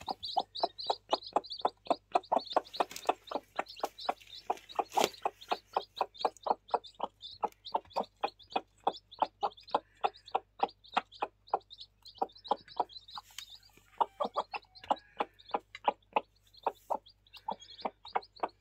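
Hen and her newly hatched chicks: a steady run of short clucks, about four or five a second, with high chick peeps over them, pausing briefly about two-thirds of the way through.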